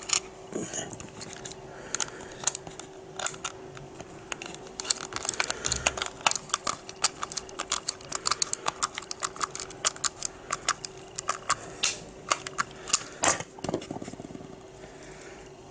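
Small plastic parts and wires of a door-handle alarm being handled and fitted into its plastic case: a run of quick irregular clicks and taps, with a faint steady hum underneath.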